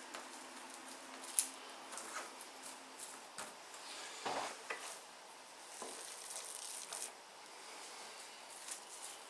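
Faint handling sounds: plastic film rustling on a steel worktop, and ground meat being scooped by hand from a plastic food processor bowl, with scattered light clicks and a few soft knocks.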